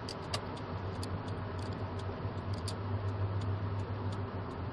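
Steady engine and road noise inside a moving car's cabin, a low hum under a broad haze, with a few light clicks.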